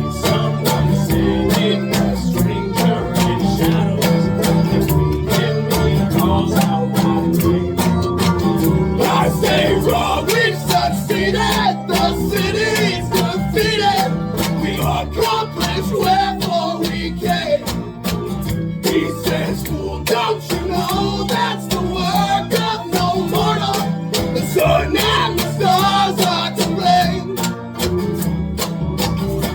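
A folk band playing live in an instrumental passage, led by rhythmically strummed acoustic guitar over a steady low accompaniment.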